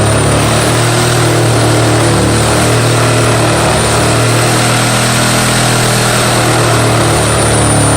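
A Skilsaw 13-amp reciprocating saw runs steadily and loudly as it cuts through a header, with a constant low hum under a harsh rasping noise. The old bimetal blade is dull.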